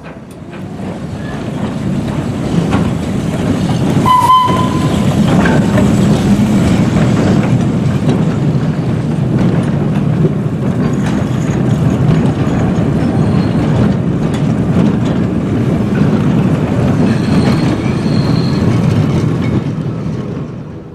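Wooden railway goods wagons rolling along track: a steady rumble with clicking from the wheels. A short, shrill tone sounds about four seconds in.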